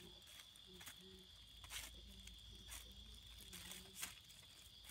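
Faint crinkling and light clicks of small plastic bags being handled and set down on the ground, over a steady high chirring of night insects.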